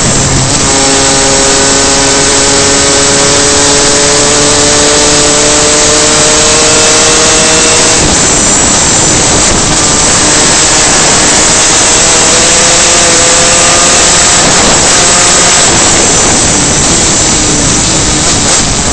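Superkart engine running hard, very loud, under a heavy rush of wind and road noise. The engine note climbs steadily for several seconds, breaks off about eight seconds in, then climbs again and drops back around fifteen seconds in.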